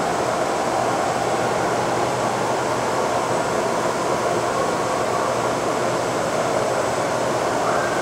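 A Fryer MC-45 vertical machining center running, with a steady, unbroken mechanical whir as its table traverses sideways along the X axis.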